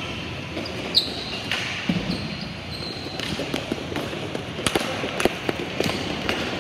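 Ball hockey play: sticks and ball clacking and knocking on the rink surface in quick irregular hits, busiest in the second half, with a few short high squeaks over a steady background hum.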